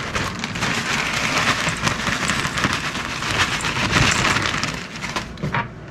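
Plastic bag crinkling as crushed saltine crackers are shaken out of it into a mixing bowl: a dense, crackly rustle that fades near the end.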